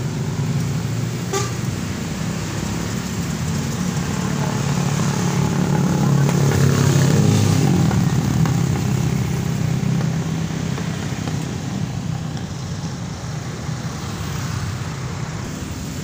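Busy road traffic: a steady stream of motorcycles and cars running past, with engine rumble and tyre noise that swells near the middle as a truck passes. A short horn toot sounds early on.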